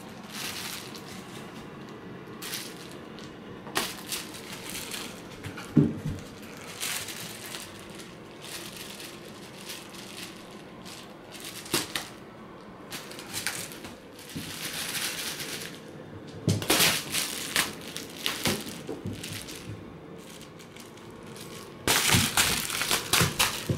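Plastic bubble wrap crinkling and rustling in irregular bursts as a cat swats and grabs at it. There is a single sharp click about six seconds in, and the loudest bursts come near the end.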